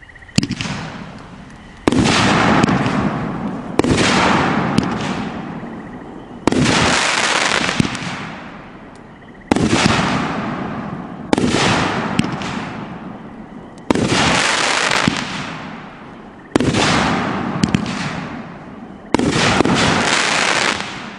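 Nine shots from a consumer firework cake, each a sudden loud bang followed by a few seconds of fading crackle, the shots coming every two to three seconds.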